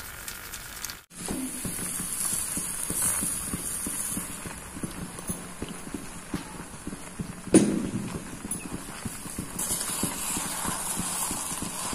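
Wooden spatula knocking and scraping against a kadhai while stirring grated raw mango, a quick irregular patter of small knocks, with one louder knock about seven and a half seconds in. The sound briefly cuts out about a second in.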